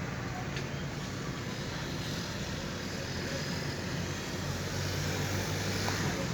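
2012 Dodge Ram V8 engine idling steadily, an engine that is logging a misfire on cylinder 3.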